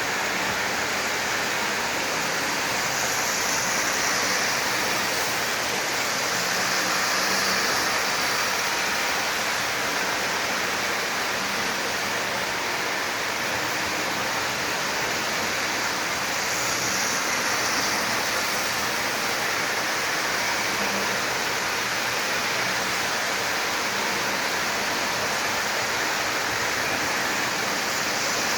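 Several toy electric trains running together on their tracks: a steady rolling rattle of wheels on rail with motor whir, swelling briefly a few seconds in and again just past halfway as a train passes closer.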